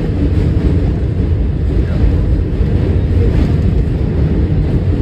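Steady low rumble of a New York City Q subway train running, heard from inside the car.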